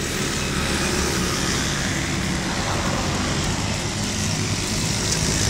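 Steady street noise, a rumble like road traffic, with no clear single event.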